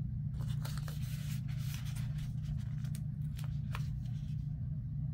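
Paper sticker sheets rustling and sliding over planner pages as they are handled, with scattered light ticks and scrapes, over a steady low hum.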